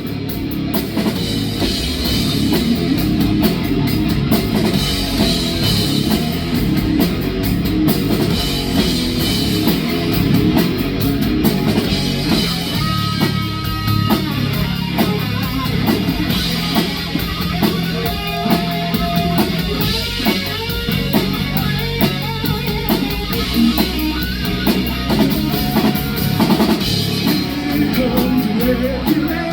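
Live rock band playing an instrumental section: drum kit and electric guitars, loud and steady.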